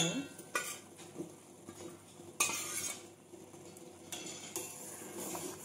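A steel ladle stirring whole amla in a steel pot of boiling sugar syrup, scraping and clinking against the pot a few times. Faint bubbling of the syrup runs underneath.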